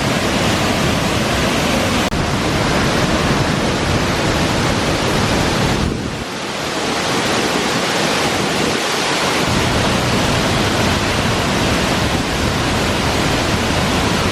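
Waterfall in full flow: a loud, steady rush of falling water, dipping briefly about six seconds in.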